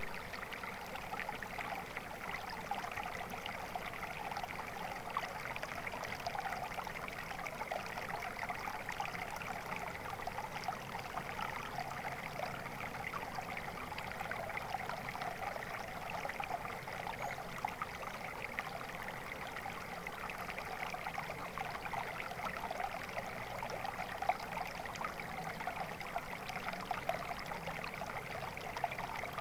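Water flowing steadily in a stream, a constant babbling with many small splashes and trickles.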